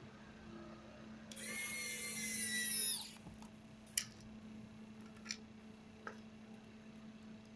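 Electric screwdriver whirring for about a second and a half, driving in a screw of a laptop's bottom cover, followed by a few light clicks.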